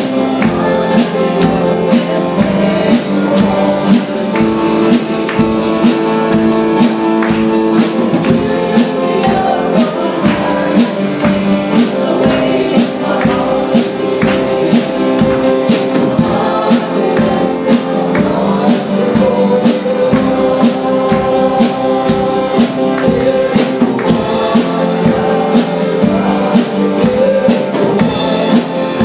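Live church worship music: a band playing a song with a steady drum beat, with singing.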